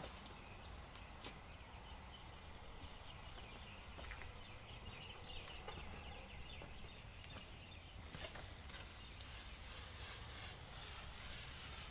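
Quiet handling noise over a low steady background: scattered light clicks and knocks, then a run of short hissy bursts in the last few seconds.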